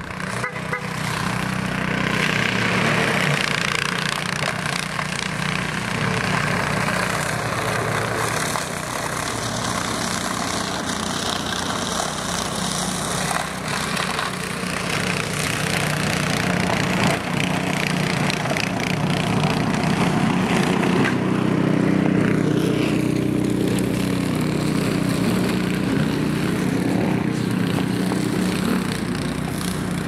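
Engine of a snow-removal machine running steadily, a low engine hum under a broad rushing noise; the low hum grows stronger from about two-thirds of the way in.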